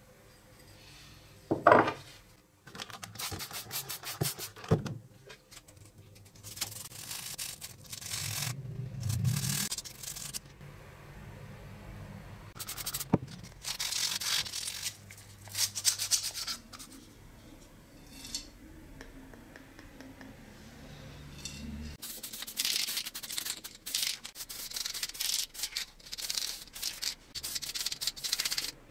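Hand sanding of a bicycle bell's grey-coated metal dome: bursts of scratchy rubbing strokes, coming in groups with pauses between. A sharp knock about two seconds in.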